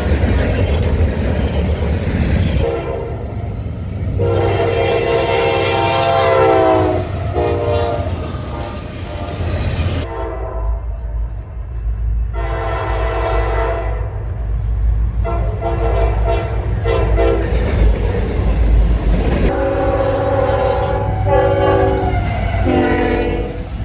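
Locomotive air horn sounding a series of long and short blasts over the low rumble of a train. The last several blasts come in quick succession near the end.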